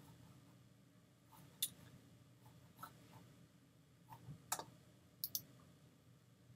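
A handful of faint, irregular computer mouse clicks over near-silent room tone.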